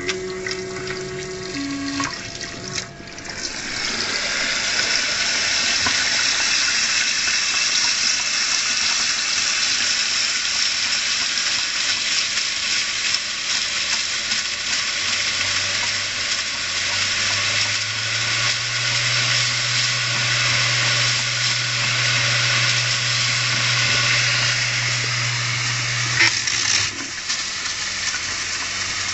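Tap water running and splashing onto an opened, powered-up hard disk drive lying in a bathtub. It starts about three seconds in after a short mechanical whirring, and lets up near the end. A low steady hum sounds under the water in the second half.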